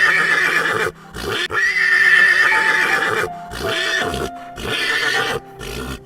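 A horse whinnying: two long, loud neighs of about a second and a half each, then several shorter calls.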